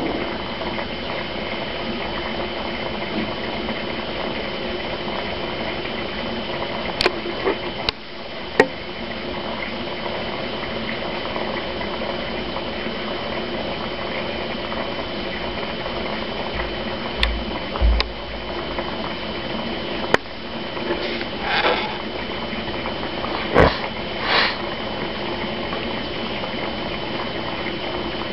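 Aquarium filter running with a steady hum and the bubbling of water. A few short sharp clicks fall at scattered moments.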